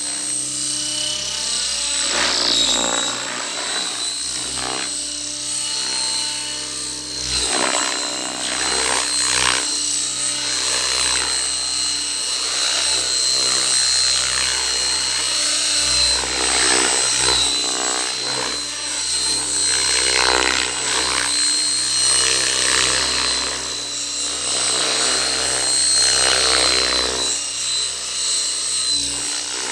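Fusion 50 radio-controlled model helicopter flying, its engine and rotors running with a steady high whine, the sound swelling and fading as it passes back and forth.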